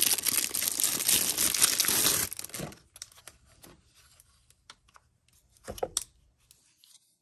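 Plastic packaging bag crinkling and tearing as a large radio battery is unwrapped, for about the first two and a half seconds. After that, a few light clicks of the battery being handled against the handheld radio, with a louder double click about six seconds in.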